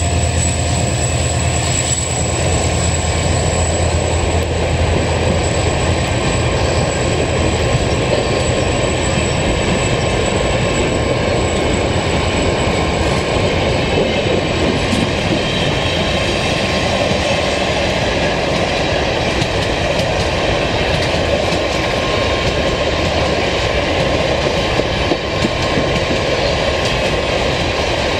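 A long freight train of cement hoppers and boxcars rolling past, with steady wheel-on-rail noise and clatter. A low hum, likely from the receding locomotive, dies away about six seconds in.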